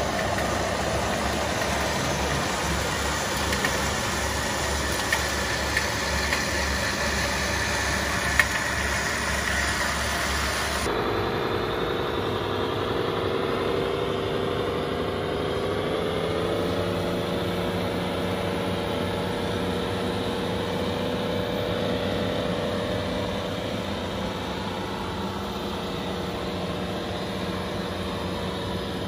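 Radio-controlled model trucks running: a steady engine-like drone with a motor whine. The sound changes abruptly about a third of the way in, after which the whine rises slightly in pitch. A few short clicks come in the first half.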